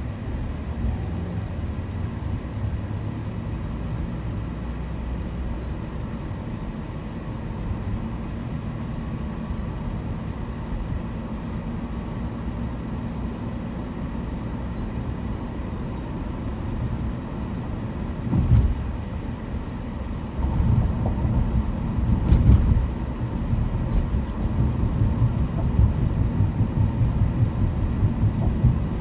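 Car driving: a steady low road and engine rumble. From about eighteen seconds in it turns louder and uneven, with repeated low thumps.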